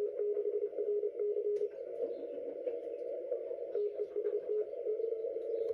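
Amateur radio receiver on the 40-metre band, giving narrow band hiss and crackles through a tight audio passband, with a weird noise the operator wanted to record. A steady tone inside the hiss beeps on and off in short and long pulses, stops a little under two seconds in, returns about four seconds in, and holds steadier near the end.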